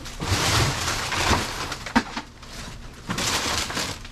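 Plastic garbage bags and cardboard rustling and crunching as a person steps on and rummages through them, in two long bursts with a sharp knock about two seconds in.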